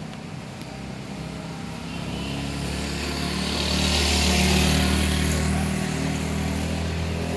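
A motor vehicle's engine hum growing louder from about two seconds in, loudest around four to five seconds with tyre hiss, as it draws near and goes by, then running on steadily.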